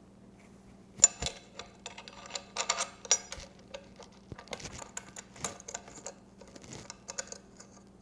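Irregular light metallic clicks and clinks of a small bracket and bolt being fitted by hand to the aluminium timing cover of a Datsun L26 engine, loudest about a second in.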